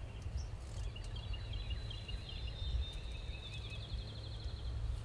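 A songbird singing one long, high, twittering song that ends in a fast trill, over a steady low rumble of wind on the microphone.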